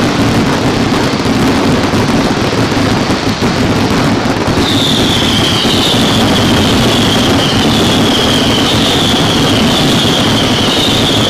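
A dense fireworks barrage: many overlapping bursts and crackling that merge into one continuous loud roar. About halfway in, high whistling tones join, each sliding down in pitch and repeating about once a second.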